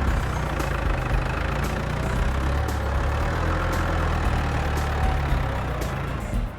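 Heavy diesel engine of a large construction machine running steadily.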